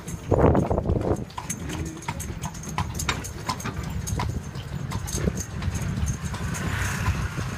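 Horse's hooves clip-clopping on paved road as it pulls a carriage, a quick uneven run of sharp strikes over the steady low rumble of the carriage wheels.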